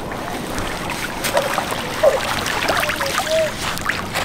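Shallow water running steadily, broken by small irregular splashes as a toy doll is dipped and walked through it.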